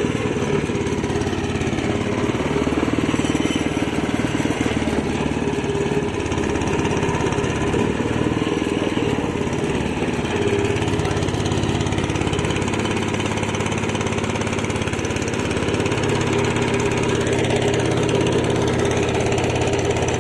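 A small engine running steadily, its pitch shifting a few times.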